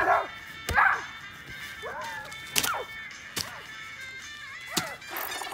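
A child's short angry shouts, about six in a row, mixed with sharp thumps, over background music.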